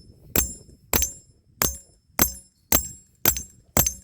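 Seven even strikes, about two a second, each with a short metallic ring: a mallet tapping the tire-plug insertion tool to drive a stuck string plug into the tire.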